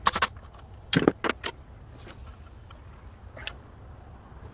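Metal tools and parts clinking and clacking as hands work in a car's engine bay: a couple of sharp knocks at the start, a quick cluster of three about a second in, and a single one past three seconds.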